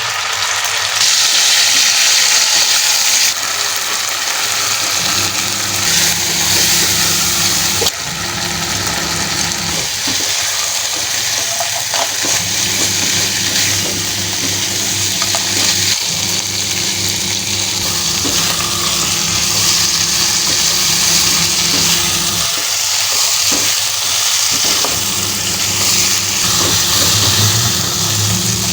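Tempeh frying in hot oil, sizzling steadily, with occasional stirring and a steady low hum underneath.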